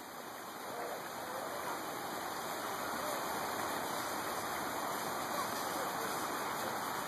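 Steady rushing of running water, swelling over the first couple of seconds and then holding even.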